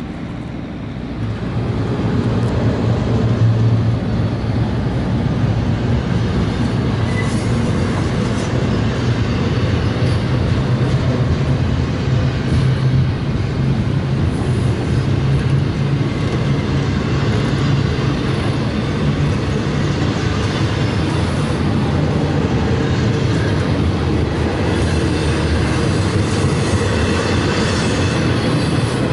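Double-stack container train rolling past, a steady rumble of the well cars' wheels on the rails that grows louder about a second in and then holds.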